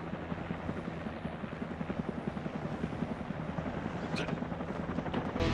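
Rotor aircraft descending to land, its rotors chopping in a fast, even beat, a soundtrack sound effect. A brief high whine cuts in about four seconds in.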